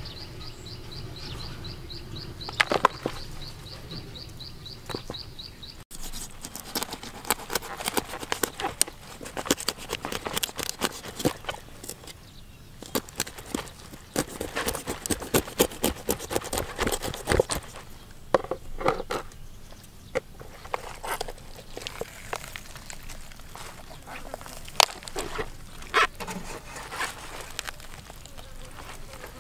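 A knife cuts through the skin of a plucked raw poultry carcass and hands pull the body open and handle the wet innards, making a long run of irregular wet clicks and crackles. For the first few seconds, before the cutting, a high chirp repeats rhythmically.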